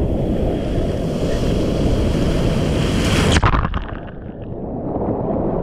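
Breaking sea surf churning and foaming close around a waterproof action camera at water level, with wind on the microphone. About three and a half seconds in, a wave splashes over the camera and the sound turns muffled.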